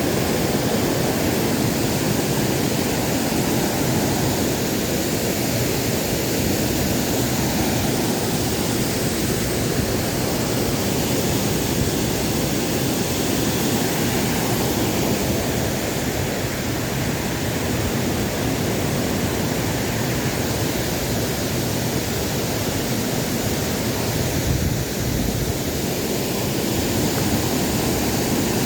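Waterfall: a steady, loud rush of falling water that holds even throughout.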